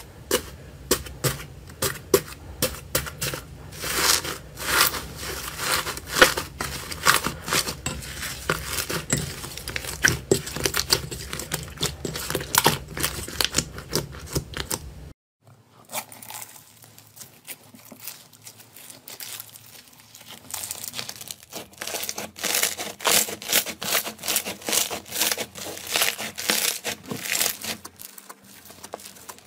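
Slime being squeezed and pressed by hand: a rapid, irregular crackle of small pops and clicks from green slime packed with foam beads. After a sudden break about halfway, a second, thick slime is stretched and pressed with a similar but lighter crackling.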